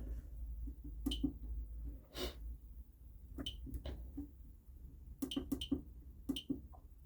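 Button presses on an MxPro 5 fire alarm panel's keypad while scrolling through its menus: about a dozen short clicks at uneven spacing, some in quick pairs, each with a brief high beep.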